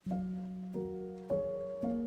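Instrumental background music starting right after a brief gap: single notes struck about every half second, forming a slow melody.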